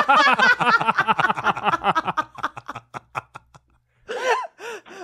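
Hearty laughter: a fast run of ha-ha pulses that fades away over about three seconds, followed by a couple of short chuckles.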